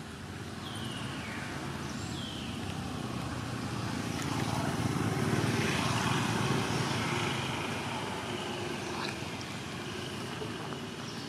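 A vehicle passing on a nearby road, its noise growing louder to a peak about halfway through and then fading away.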